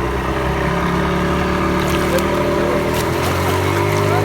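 Motorboat engine running steadily; its pitch changes a little past three seconds in.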